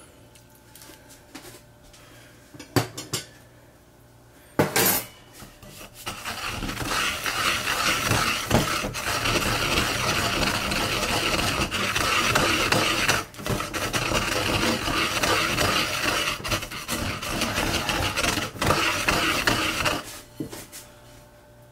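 Wooden surikogi pestle grinding sesame into a moist paste against the ridged inside of a ceramic suribachi mortar: a continuous gritty scraping for about fourteen seconds, with a few brief pauses. A few sharp knocks come before it, in the first five seconds.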